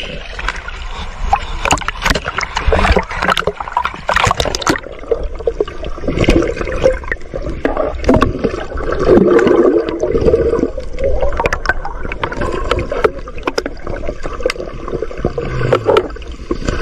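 Heavy splashing as a net full of thrashing bigeye scad is hauled up at the surface beside an outrigger boat's hull. About five seconds in, the sound turns muffled and gurgling as it is heard from under the water.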